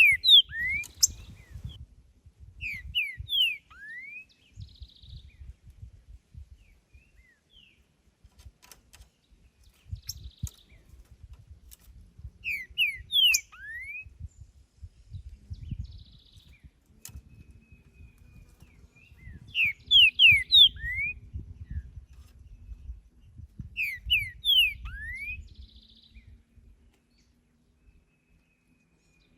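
Green-winged saltator (trinca-ferro) singing: short phrases of a few loud slurred whistles, each ending in a rising note, repeated about five times with pauses of several seconds between them.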